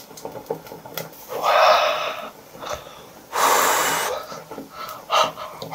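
Two long, noisy slurps as a man sucks cooked clam meat and its broth into his mouth from chopsticks, after a few faint clicks of the chopsticks against the shell and bowl.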